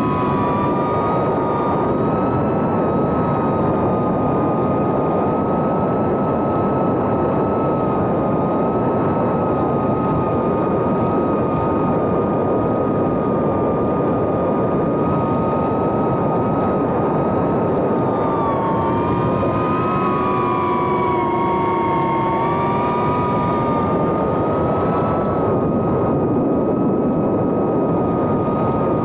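2.5-inch FPV whoop drone's Happymodel 1404 3500KV brushless motors and propellers whining in flight, heard from on board over a loud rush of prop wash. The steady whine wavers and splits into gliding tones with throttle changes about two-thirds of the way through.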